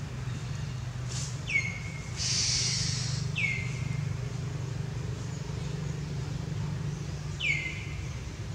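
Three short high-pitched animal calls, each sweeping sharply down and levelling off briefly, spaced a few seconds apart, over a steady low hum.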